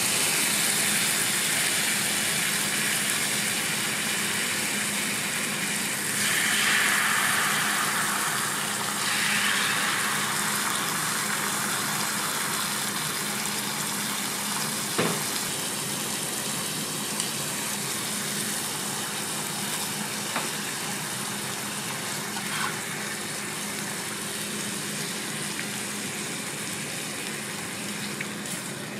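Bacon and ham sizzling on a hot flat-top griddle. Beaten egg is poured into square metal moulds on the griddle, giving two louder rushing swells about six and nine seconds in. There are a few light taps of metal utensils later on.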